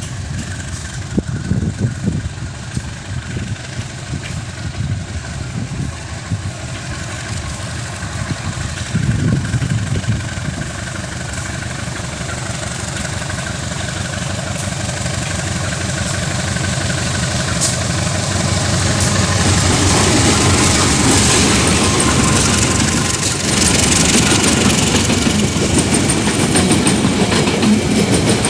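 A diesel-hauled freight train approaches, the locomotive's engine drone and the rail noise growing steadily louder over the second half.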